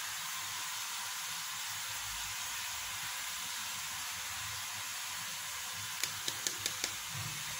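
Semolina being shaken through a plastic mesh sieve: a steady, even hiss, with a few light clicks a little after six seconds in.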